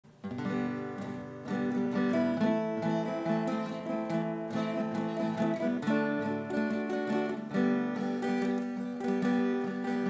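Acoustic guitar strumming and picking a chord progression, the instrumental introduction of a folk ballad, with the chords changing every second or two.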